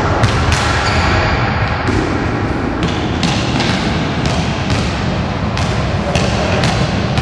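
Basketball dribbled hard on a sports-hall floor while running a slalom through poles: a run of sharp bounces, about two to three a second, starting about three seconds in, over a steady background noise.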